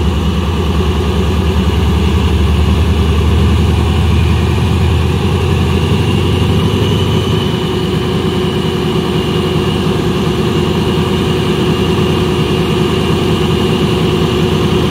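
ZCU-30 diesel-electric locomotive standing with its engine idling: a loud, steady deep rumble with a thin high whine over it, the low rumble easing slightly about five seconds in.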